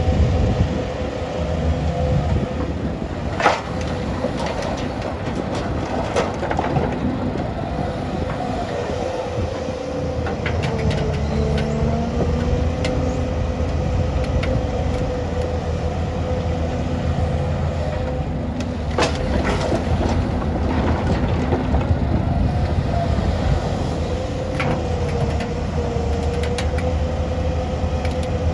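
Doosan DX excavator's diesel engine running steadily under work, with a steady whine that wavers slightly in pitch over the low rumble. A couple of sharp knocks stand out, one a few seconds in and another about two-thirds of the way through.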